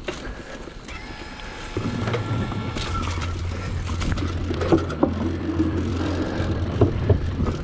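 Trek Marlin 5 mountain bike ridden fast over a dirt trail: a steady low rumble of tyres and wind on the handlebar microphone that grows louder about two seconds in, with scattered knocks and rattles from the bike over bumps.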